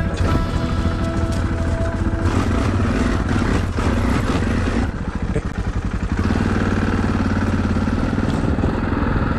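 Yamaha XT660Z Ténéré's single-cylinder engine running, with a few sharp knocks and rattles from the bike over rough ground in the first half.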